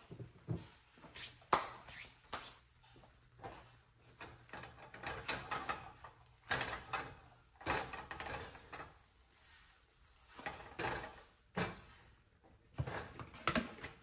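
A silicone spatula scraping and knocking against a nonstick frying pan as an omelet is worked loose and flipped over, a string of irregular clatters and scrapes.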